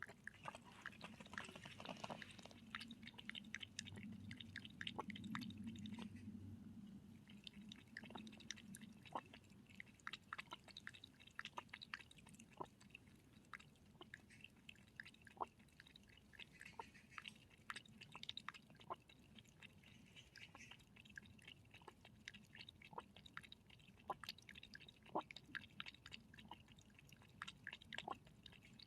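An animal eating dry food: irregular crisp crunches and chewing. A faint low hum lies under the first several seconds.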